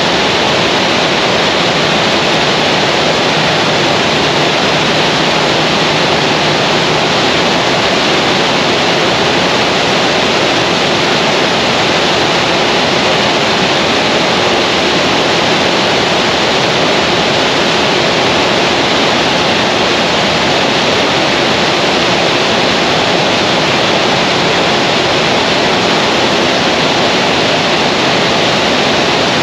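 Dark SHEITAN liquid-methane rocket engine firing on a test stand: the loud, steady rush of its exhaust plume, holding level throughout with no change in pitch.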